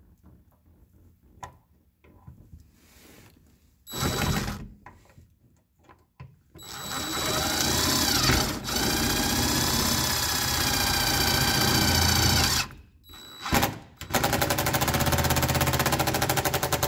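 DeWalt cordless impact driver driving in the fastener of a brake-line clamp, in several bursts: a short one about four seconds in, a long run of about six seconds in the middle, and near the end a fast steady rattle of impacts as the fastener tightens.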